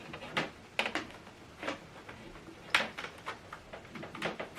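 Scattered light clicks and knocks, about eight in all, of a USB cable plug being handled and pushed into a laptop's port.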